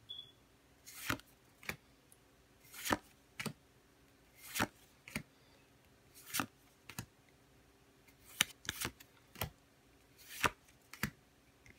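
Pokémon trading cards slid one at a time off a hand-held stack: a short, crisp card sound about every second and a half, several coming in quick pairs.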